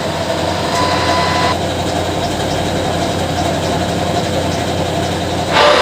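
Paint shaker machine running with a steady mechanical hum and rattle as it shakes a can of paint. A thin steady tone stops about a second and a half in.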